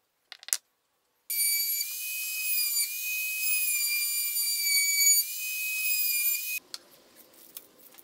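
Trim router with a round-over bit running and cutting an edge: a loud, high-pitched whine whose pitch wavers slightly, starting about a second in and cutting off abruptly about six and a half seconds in. A sharp click comes just before it, and quiet scratching of hand sanding follows near the end.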